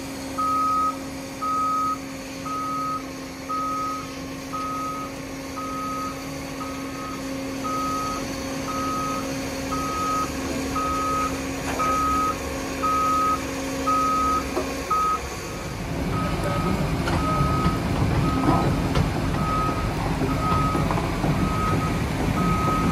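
Caterpillar 335F excavator's travel alarm beeping steadily about once a second over a steady engine hum. About fifteen seconds in the hum stops and a louder, rougher machinery rumble takes over, with the beeping continuing more faintly.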